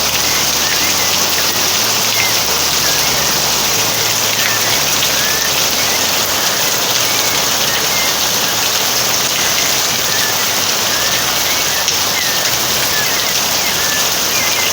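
Steady rain falling as a dense, even hiss, with short faint bird chirps scattered through it.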